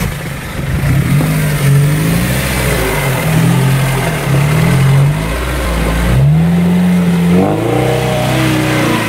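Lada Niva engine revving up and down several times under load as the 4x4 crawls through a soft mud hole, with a longer held rev near the end.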